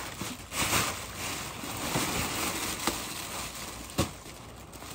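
Paper crinkling and rustling in uneven bursts as a wrapped gift is opened, with one sharp click about four seconds in.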